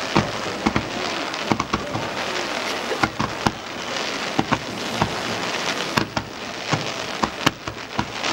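Fireworks display: a ground fountain and rising star shells make a steady hiss, broken by irregularly spaced sharp cracks and pops.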